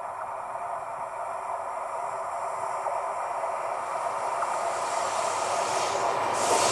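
A train approaching on the line, its running noise growing steadily louder, with a rush of high hiss rising near the end as it draws close.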